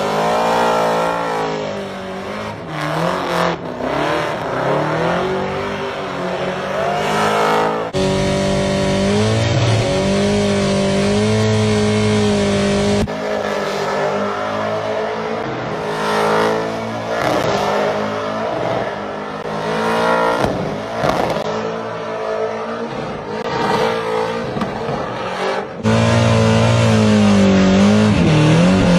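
Supercharged 1000 hp V8 of a Holden Commodore drift ute revving hard and rising and falling in pitch again and again while it drifts and does burnouts, with tyres squealing. The sound changes abruptly a few times, about 8, 13 and 26 seconds in.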